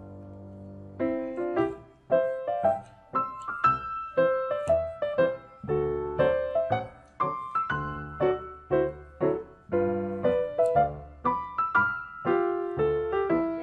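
Background piano music: a held chord, then a steady run of struck notes and chords from about a second in.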